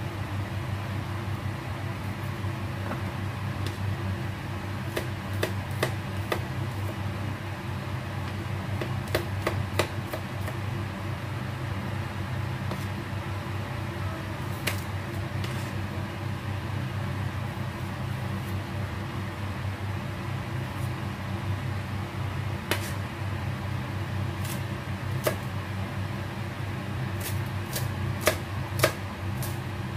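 Chef's knife striking a plastic cutting board while chopping tomato, garlic and spring onion: sharp knocks in scattered clusters, with a quicker run near the end, over a steady low hum.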